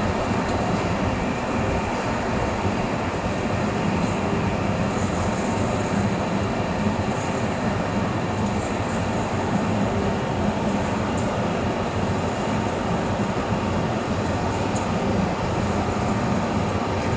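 Heavy-duty vertical turning lathe running, a steady, loud mechanical noise with a low hum.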